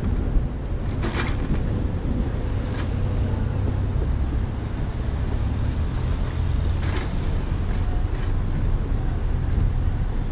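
Electric mobility scooter driving on asphalt: a steady low rumble of its motor and tyres, with a few faint clicks.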